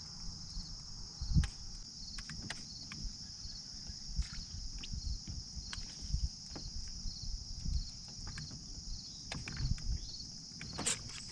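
A steady, high chorus of insects with a regular pulse to it. Scattered clicks and low knocks from rod and reel handling on the boat deck come through it, the loudest knock about a second and a half in.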